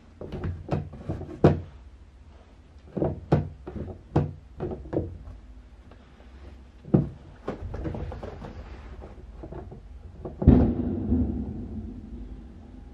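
Plastic pet-door flap set in a cardboard box clacking and knocking as a cat is pushed through it, a run of short sharp clicks in quick clusters. A single louder thump comes about ten and a half seconds in.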